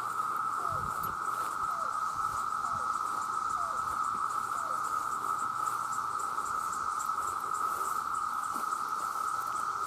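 Chorus of many cicadas making one steady, unbroken drone, with faint quick ticking higher up.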